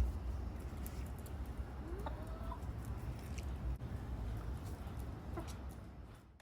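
A chicken clucking, with one short call about two seconds in and a fainter one later, over a steady low rumble; the sound fades out near the end.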